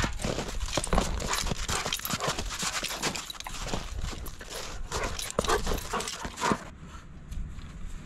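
A Labrador retriever panting hard and fast while running, its paws crunching on packed snow; the sound cuts off suddenly about seven seconds in.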